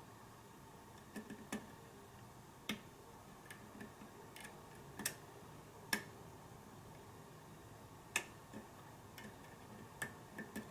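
Faint, irregular metallic clicks and ticks of a hook pick and tension wrench working the pin stack of a Sargent pin-tumbler lock cylinder while it is being picked, about a dozen sharp ticks unevenly spaced.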